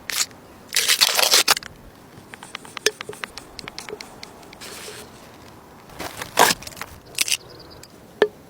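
Hand-handling noises: several short scrapes, one lasting most of a second, and a quick run of sharp clicks, with a single click near the end.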